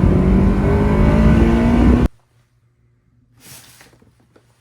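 Honda S2000 four-cylinder engine pulling under acceleration, its pitch climbing steadily, until the sound cuts off abruptly about two seconds in. After that it is almost silent but for one brief faint rustle.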